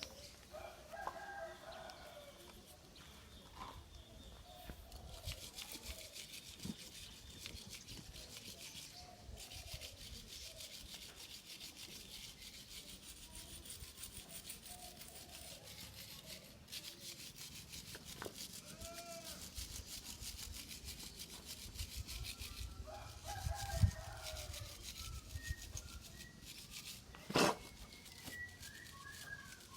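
Stiff brush scrubbing motorcycle engine parts in quick, repeated strokes, with chickens clucking in the background. There is one sharp knock near the end.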